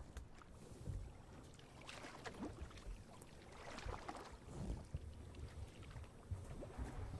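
Water lapping and splashing against the hull of a small fishing boat, with a few louder splashes about two and four seconds in over an irregular low rumble.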